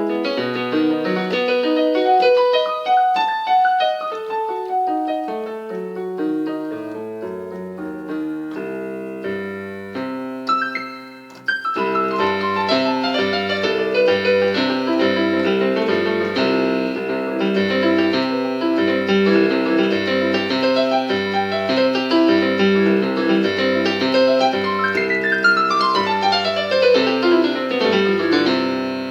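Solo piano playing. A lighter melodic passage fades to a brief lull about eleven seconds in. Fuller chordal playing follows over a repeating low bass note, and a fast run sweeps down the keyboard near the end.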